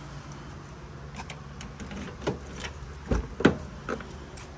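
A few sharp knocks and clicks, spread over a couple of seconds, over a low steady hum.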